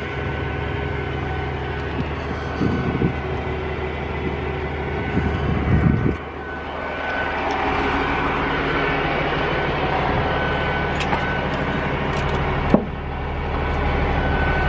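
Engine idling steadily with a low, even hum, with some rustling handling noise and a single sharp click near the end.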